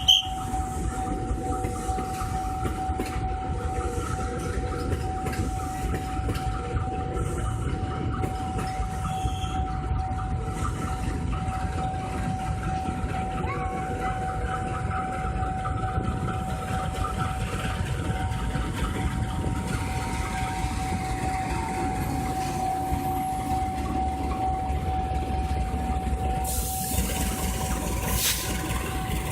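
Passenger train rolling past on the rails, a steady rumble of wheels with one high, even tone held above it. A louder hiss joins near the end.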